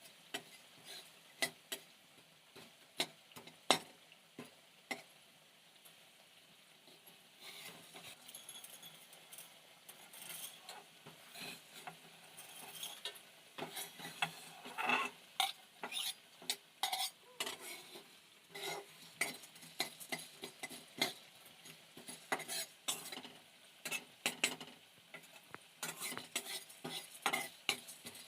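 A metal spatula stirring and scraping food frying in a pan, with repeated sharp clinks against the pan. The sizzle grows louder from about eight seconds in.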